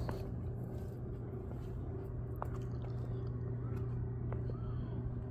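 Steady low hum with faint crackly handling noise, a single sharp click about two and a half seconds in, and a few faint short chirps just past the middle.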